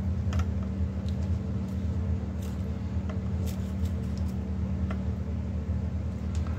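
A steady low background hum, with a few faint light clicks as steel tweezers coil fine silver filigree wire.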